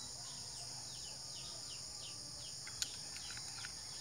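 Steady high-pitched chorus of crickets, with short falling chirps repeated a few times a second over it. A single sharp click comes near the three-second mark, with a few faint ticks after it, as the speargun is handled.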